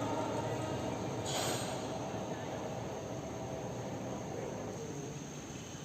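Train running on the line below, heard from high up as a steady distant rumble that slowly fades toward the end, with a brief hiss about a second in.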